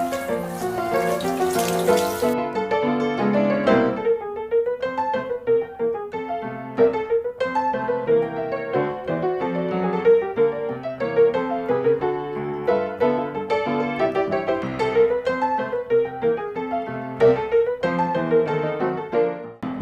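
Piano music. A steady hiss lies under it for the first two seconds or so and then stops.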